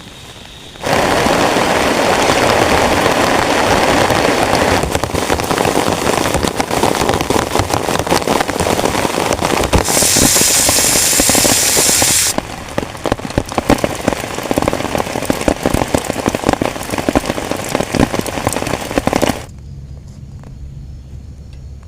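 Heavy rain pattering densely on a tent, a thick hiss full of sharp individual drop hits. It starts suddenly about a second in and falls away abruptly to a much quieter background near the end.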